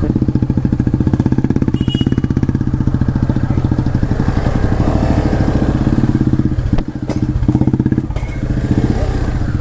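250 cc motorcycle engine running at low revs in low gear, with a fast, even beat of firing pulses. The throttle eases off briefly about seven seconds in, then picks up again.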